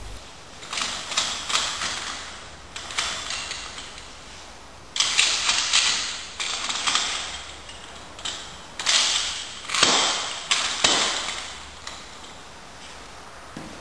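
Steel engine and gearbox support bar being handled and adjusted: irregular metallic clicks, knocks and short sliding rattles as its telescopic arm and fittings are moved.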